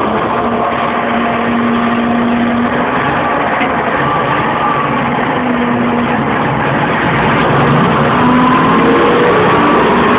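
Bulldozer's diesel engine running loud and steady, with thin whining tones that drift in pitch over it; it grows a little louder near the end.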